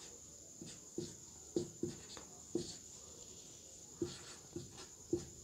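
Marker pen writing on a whiteboard: faint, short, irregular strokes and taps, about ten of them, as letters are drawn.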